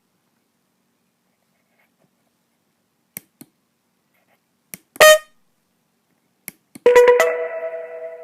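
A few faint clicks and one short electronic beep about five seconds in, then near the end a homemade smartphone's speaker starts playing a loud electronic ringtone melody, stepping between a few steady pitches in a rapid pulsing rhythm: the ringtone being tested.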